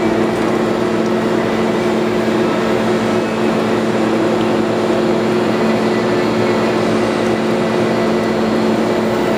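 Sawdust dewatering machine with a wedge-wire drum screen running steadily: a constant mechanical hum with two steady low tones under an even noise.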